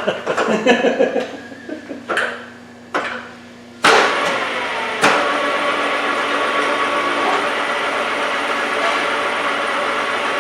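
A few knocks, then a machine tool, taken to be the milling machine, starts suddenly about four seconds in. It steps up about a second later and then runs steadily with an even mechanical noise and a few steady tones.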